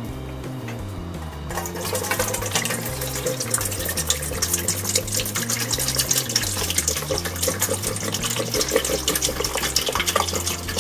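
Water poured from a plastic bottle into a rice cooker's metal inner pot, splashing steadily. The pouring starts about a second and a half in.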